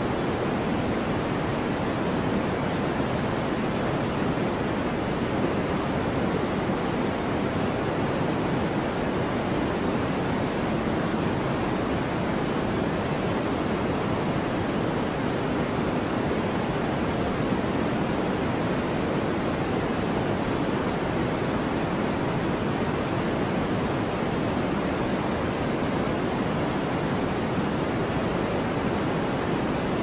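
Steady white noise for sleep: a constant, even hiss that never changes, its weight in the low and middle range rather than the treble, like pink noise.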